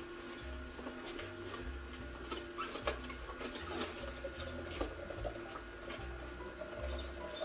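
Nama J2 cold-press juicer running with a steady motor hum, with irregular clicks and knocks as fruit chunks are dropped into its hopper.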